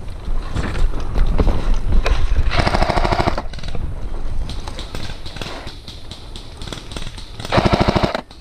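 Electric airsoft machine gun (A&K PKM replica) firing two short full-auto bursts, a rapid even rattle about two and a half seconds in and again near the end. Between the bursts there is low rumbling handling and movement noise.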